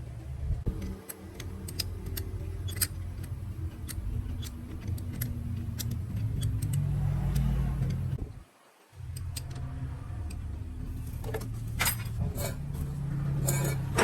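Win 100cc motorcycle's small single-cylinder engine running steadily, with light metallic clicks over it. The sound swells in the middle and drops out for about half a second a little past halfway before carrying on.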